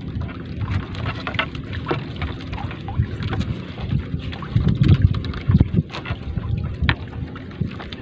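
Gusty wind on the microphone, with the rustling and light knocks of a nylon trammel net being hauled hand over hand across a wooden boat's gunwale.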